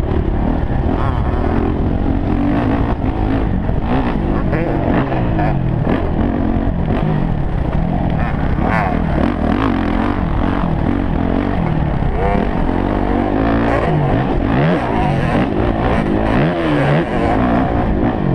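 Dirt bike engine heard from the rider's own helmet, revving up and down over and over as the bike accelerates and shifts around a motocross track.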